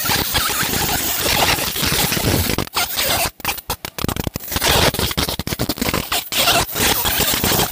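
50 W fiber laser marking silver: a raspy, crackling sizzle as the pulsed beam burns into the metal. It breaks off in several short gaps about three to four seconds in, and twice more later.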